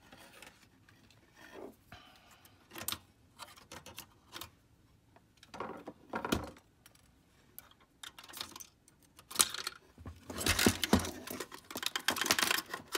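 Handling noise from a disassembled Kodak Carousel 850H slide projector: scattered clicks, taps and light knocks of its sheet-metal and plastic parts, coming thicker and louder in the last three seconds.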